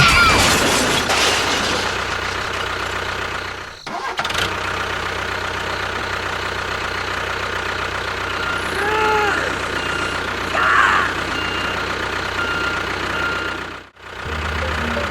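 Steady engine-like running hum, broken by two abrupt cuts, with a few short rising-and-falling chirps near the middle.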